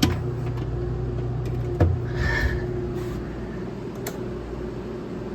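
Steady low mechanical hum with a faint higher tone, broken by a click at the start, a knock about two seconds in and another click later. The Blizzard blender's motor, powered with its foot pedal bypassed, stays dead and does not start.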